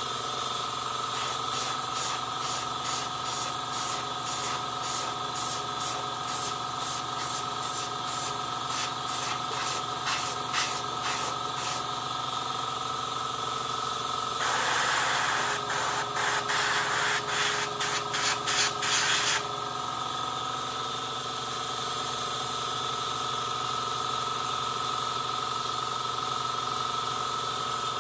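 Airbrush spraying paint in short, rapid bursts, several a second, over the steady hiss and hum of an air compressor running. The bursts stop about twelve seconds in, return denser from about fifteen to nineteen seconds, then the air hiss carries on alone.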